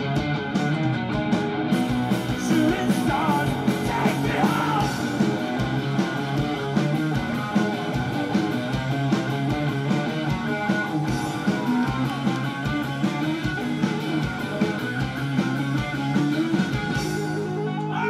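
Live rock band playing: electric guitars and drums, with a singing voice over them during the first few seconds. Near the end the drum hits drop out and a strummed electric guitar carries on.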